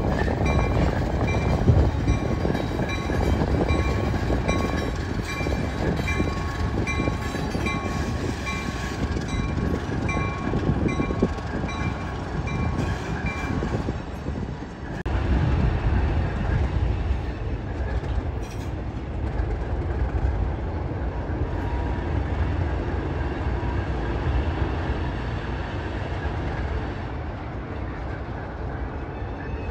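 ALCO RS-1 locomotive's turbocharged ALCO 539 diesel engine running under load as it pulls hopper cars, a deep steady rumble. A bell rings in an even rhythm through the first half, stopping about halfway through, and the engine sound carries on afterward.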